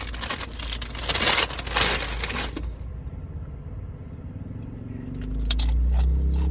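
Scraping and rustling handling noises for the first couple of seconds, then a low hum that swells and rises in pitch near the end.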